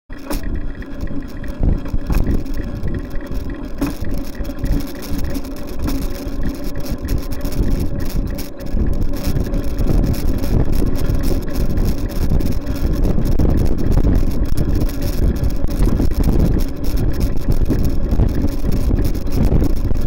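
Steady road and traffic noise heard from a bicycle-mounted camera while riding, with passing cars, wind buffeting the microphone and a faint steady hum. The sound cuts in suddenly at the start.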